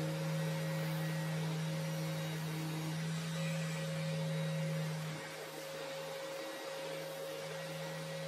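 Steady electric motor hum from a Festool dust extractor running. The low part of the hum drops a little about five seconds in.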